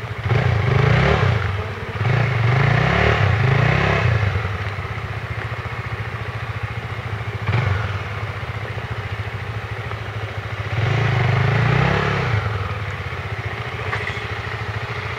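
Off-road trail motorcycle engine revving in repeated bursts of throttle, about four times, as the bike tries to climb a slippery mud slope; the rear tyre isn't gripping and the bike can't get up.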